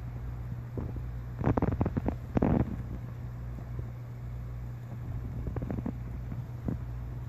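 A steady low hum, with a cluster of short scratchy rustles about a second and a half in and a few fainter ones near the end.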